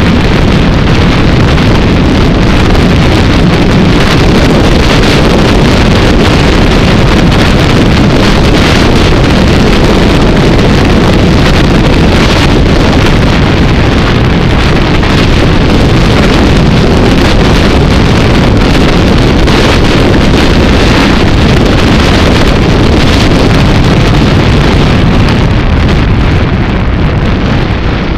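Loud wind noise on the microphone of a vehicle driving along a sandy dirt road, over the steady noise of its engine and tyres. The hiss eases slightly near the end.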